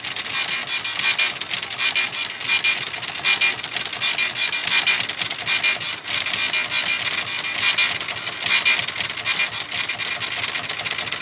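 Epson TM-U220 impact dot-matrix receipt printer printing: a steady mechanical buzz from the print head that swells about twice a second as it prints line after line and feeds the paper. It is a test print to see whether the red-light error still appears after printing.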